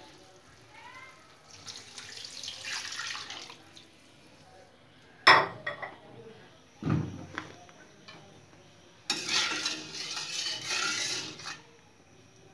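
Liquid poured into a metal kadai in two long pours, first the coconut milk onto the cooked-down masala, then a thin stream a few seconds later. Between them come a sharp knock of metal on the pan and a dull thump.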